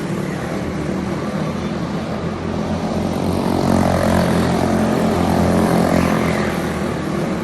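Several racing karts' Briggs & Stratton Animal single-cylinder engines running at high revs. They swell louder in the middle as the pack goes by, then ease back.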